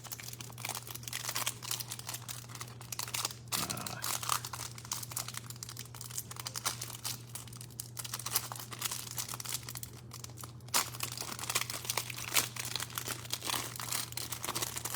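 A trading-card hanger box being opened by hand: its packaging crinkling and tearing in dense, irregular crackles, over a steady low hum.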